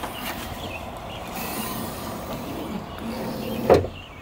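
Low steady outdoor noise with handling rustle, then a single sharp thump near the end from the Nissan 350Z's rear hatch, which won't stay up, coming down.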